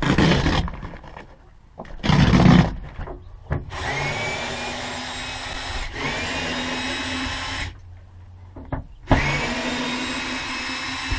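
Cordless Ridgid drill/driver running in two spells, about four seconds and then about two, each starting with a rising whine as the motor spins up, while it backs screws out of a pickup tailgate's inner panel. Before the first run come two brief loud bursts of rustling and handling noise.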